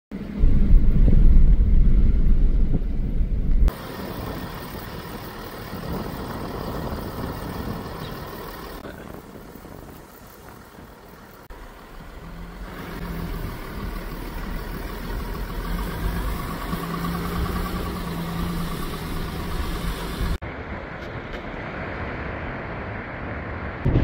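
Vehicle driving along a wet sandy track, engine and tyre rumble heard from inside the cab, with a low steady engine hum in places. The sound changes abruptly several times.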